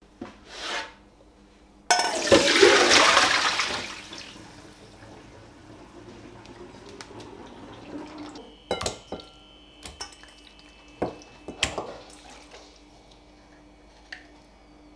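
Kitchen tap water gushing into a stainless-steel sink for about two seconds, rinsing raw chicken wings in a metal colander. A few sharp clicks and knocks follow later.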